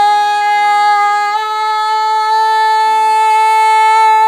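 A woman's singing voice holding one long note, which steps up a little about a second in and is then held steady, with quiet short accompaniment notes underneath.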